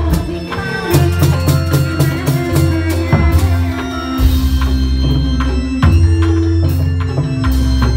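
Loud Indramayu reog dance music from a live ensemble played through a sound system: drums and cymbal strikes over a deep, sustained bass line and held melody notes.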